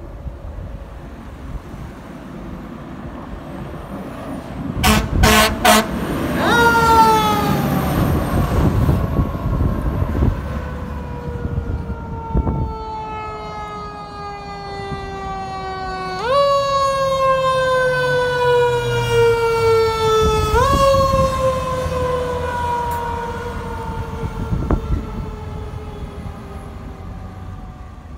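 A responding fire engine sounds several short air horn blasts about five seconds in, then its siren winds up and slowly coasts down in pitch, and is wound up again sharply twice, the typical rise-and-slow-fall of a mechanical siren. A heavy diesel engine runs underneath as the truck approaches.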